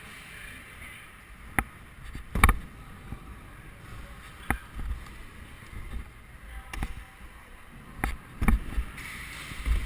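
Stunt scooter wheels rolling with a low rumble, broken by about six sharp clacks and knocks of the deck and wheels hitting the ground. The loudest comes about two and a half seconds in, and two come close together near the end.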